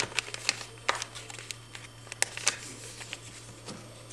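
A sheet of paper being folded and creased by hand into a paper airplane: short crackling rustles and sharp scrapes of paper, over a steady low hum.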